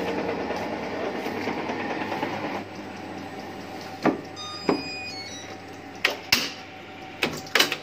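Semi-automatic paper-cutting guillotine's electric motor running with a steady hum, which drops lower about two and a half seconds in. Several sharp clicks and knocks follow from the machine's mechanism in the second half.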